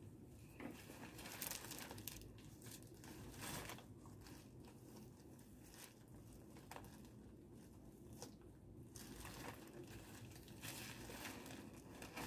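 Faint crinkling and rustling of plastic wrapping as bonnets are handled and unpacked, with scattered brief crackles.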